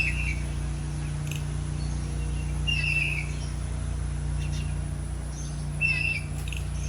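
A bird calls three times, short notes about three seconds apart, over a steady low mechanical hum.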